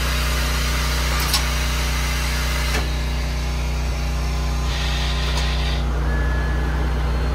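Car engine idling steadily, with a couple of faint clicks and a brief hiss about five seconds in.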